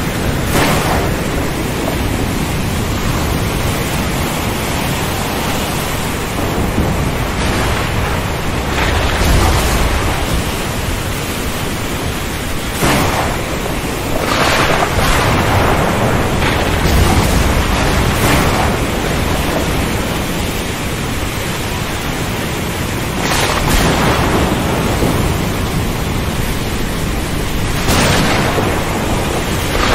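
Thunderstorm over a rough sea: a steady rush of wind and waves, with thunder swelling up several times.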